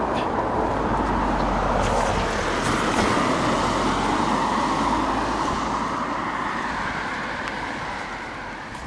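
A car passing on a wet road: a steady tyre-and-engine hiss that fades away over the last couple of seconds as it drives off.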